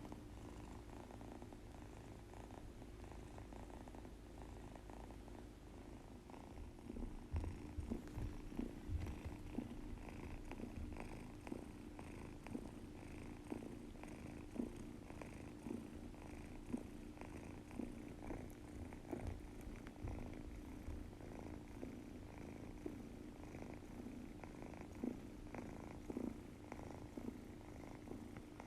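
Munchkin kitten snoring with rough, snuffly breaths through its nose, growing busier about seven seconds in. The owner at first took the sound for a blocked nose, but the kitten is healthy.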